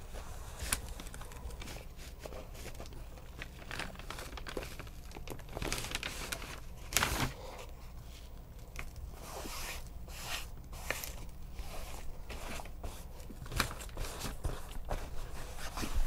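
Satin fabric and the newspaper beneath it rustling and crinkling under hands as the fabric is smoothed and pressed down over an oval foam form, with small scattered scrapes and clicks. A louder rustle comes about seven seconds in.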